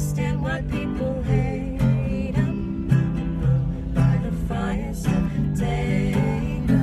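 Acoustic guitar strummed in a steady rhythm, with a man and a woman singing a melody over it.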